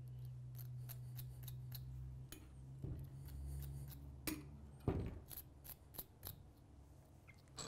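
Faint, sharp clicks and snips from fly-tying tools at the vise, about a dozen spread unevenly, over a steady low electrical hum.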